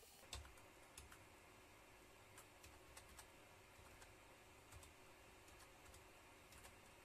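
Faint, irregular computer keyboard key presses, about a dozen short clicks over a low steady hiss.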